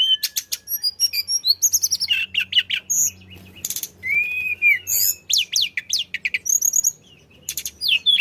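Tledekan songbird singing fast and loud: a dense run of very high chirps, sharp rising and falling whistles and quick trills, with a brief pause near the end before it picks up again.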